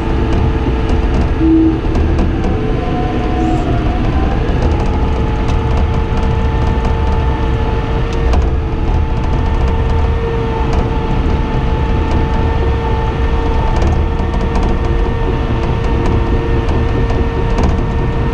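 Cat D5N XL crawler dozer running under load while pushing dirt with its blade: a steady diesel engine drone with a held whine over it and faint, scattered clatter from the steel tracks.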